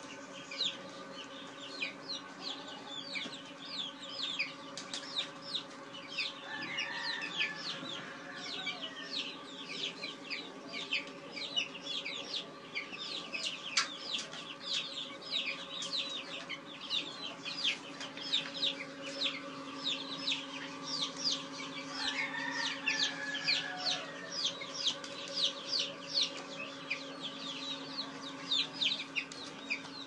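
A crowded flock of chicks peeping without pause, many short high cheeps overlapping, with a couple of lower calls about seven and twenty-two seconds in and a steady low hum underneath.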